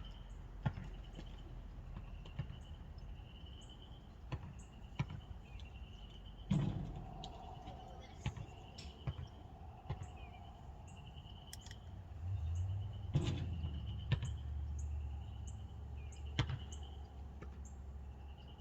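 Scattered light clicks and taps of a screw and small carburetor parts being handled, over a high rising chirp that repeats about once a second. A low steady hum comes in past the middle.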